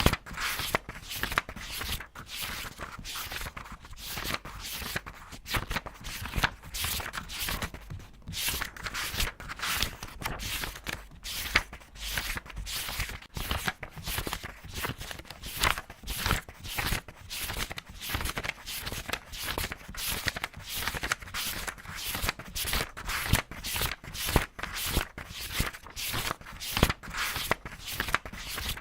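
Paper pages being turned quickly one after another, each flip a short rustle at about two to three a second.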